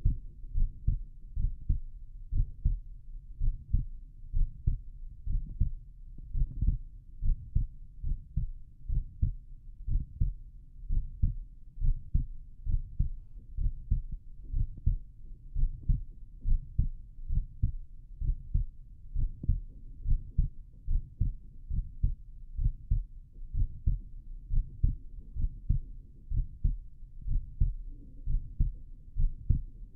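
A human heartbeat heard through a stethoscope on the chest: steady, regular lub-dub pairs of low thumps, with the body lying on the left side.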